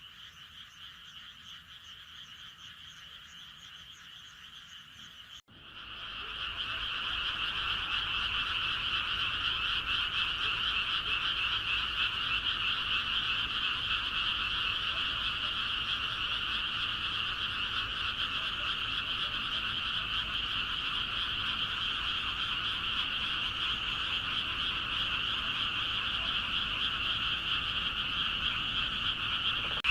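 Frogs croaking. A fainter call cuts off about five seconds in and gives way to a louder, dense, continuous frog chorus that swells up quickly and then holds steady.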